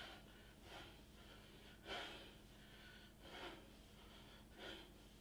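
Faint, short breaths from a man doing toe-touch crunches, four in all, about one every second and a half.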